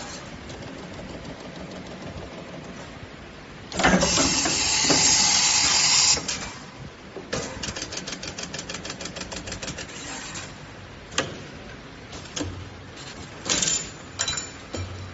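Steel rule bending machine working on a strip of cutting rule: a loud hissing stretch lasting about two and a half seconds, then a fast, even run of clicks, about eight a second, for some three seconds, followed by scattered clicks and knocks.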